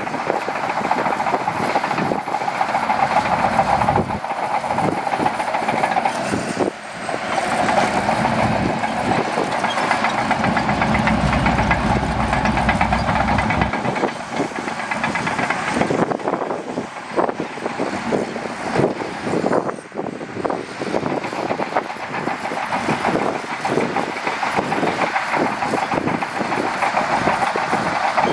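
Shantui DH17C2 crawler bulldozer at work: its diesel engine runs under load while the steel tracks clank and rattle continuously, with a heavier low rumble about halfway through.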